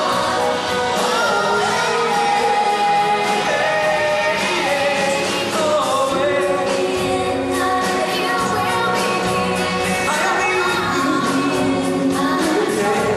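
Live rock band playing a song on drum kit, electric guitar and bass, with singers holding long notes over it.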